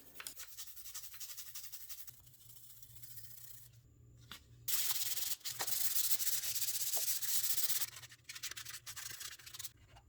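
Carbon buildup being scrubbed off the exhaust manifold's gasket surface. It makes a rasping, sanding noise, soft at first and then louder for about three seconds from the middle, ending in a few short strokes.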